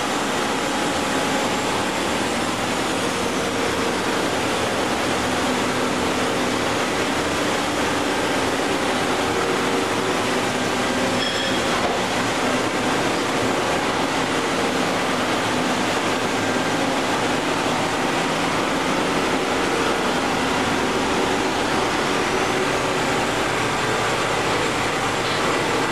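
Steady machine-shop background noise: an even rush and hum of running machinery and ventilation, with a few faint steady tones, unchanging throughout.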